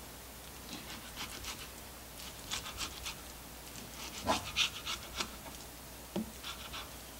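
Serrated knife sawing through tenderized round steak on a cutting board: short strokes in several quick runs, a few of them with a knock of the blade against the board.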